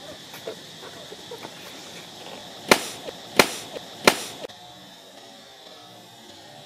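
Three sharp smacks about two-thirds of a second apart, each followed by a smaller knock, as monkeys' hands strike and grab taut inflated balloons. Steady cricket chirring runs underneath and fades soon after the smacks.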